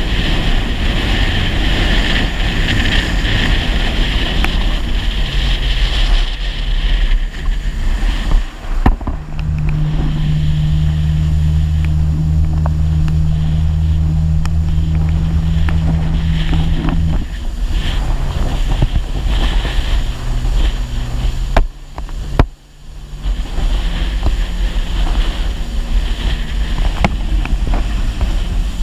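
Personal watercraft engine running at speed, with wind buffeting the microphone and water rushing past the hull. The engine note holds steady for several seconds in the middle and shifts around that, with two brief drops in loudness.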